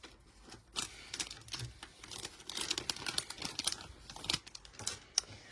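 Irregular small clicks and crinkling rustles of hands handling a doll's small accessories and clothing.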